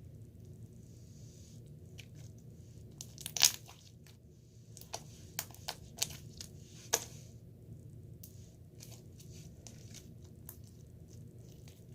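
Slime being worked by hand, with scattered crackles and pops; the loudest come about three and a half seconds in and again near seven seconds, over a steady low hum.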